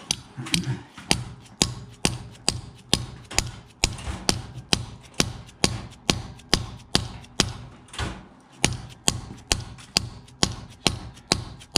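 Steady hammer blows, about two a second, driving a pilot bushing into the end of the crankshaft of a Buick 430 big-block V8. There is a short break a little past two-thirds of the way through, and then the blows start again.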